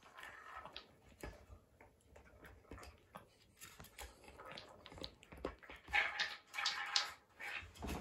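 A small Papillon–Corgi mix dog whimpers in short high whines, loudest near the end, while it mouths and paws a wooden cat ball-track toy, giving light clicks and knocks of wood.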